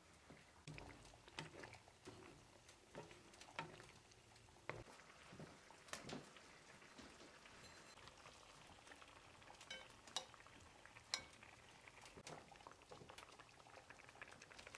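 Tomato mixture for menemen simmering faintly in a frying pan, with soft bubbling and popping, while beaten eggs are poured and spooned in. Scattered sharp clicks run through it, the loudest about eleven seconds in.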